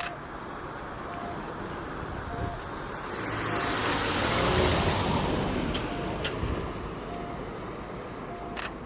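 A vehicle passing: a rushing noise swells to a peak around the middle and fades away. A faint short beep repeats about once a second throughout, and a few sharp clicks come near the end.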